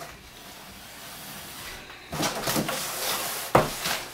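Cardboard shipping box with a longboard deck inside being flipped and handled: rustling and scraping from about two seconds in, with a sharp knock near the end.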